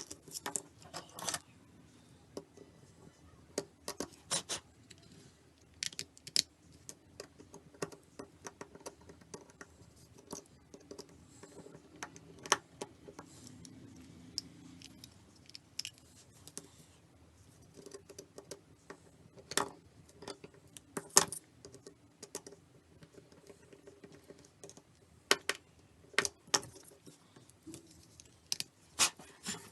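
Irregular sharp clicks, taps and scrapes of small hand tools prying and picking at the plastic casing of a 3G device, a few clicks at a time with short pauses between.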